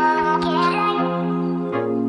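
Background music: held keyboard chords that change about once a second, with a melody line on top.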